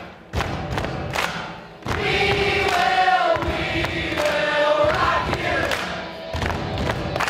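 A large group of teenage girls singing together in unison, a chant-like choral song over a steady percussive beat of about two strokes a second. The beat stands alone for the first two seconds, then the voices come in with long held notes.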